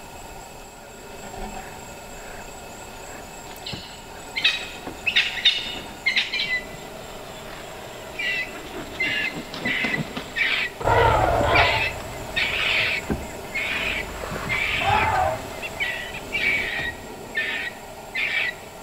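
Birds calling in a run of short, repeated high-pitched calls, starting about four seconds in, with the loudest call a little after the middle.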